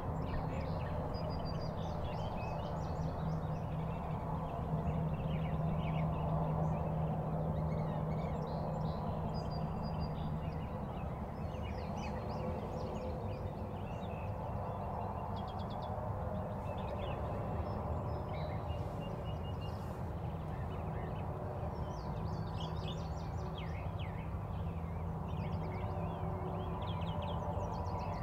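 Songbirds chirping and singing in short scattered phrases over a steady low hum.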